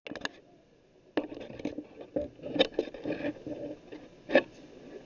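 Light clicks, taps and scrapes of bicycle hand pump parts being handled on a table, after a brief silent gap near the start, with a sharper click near the end.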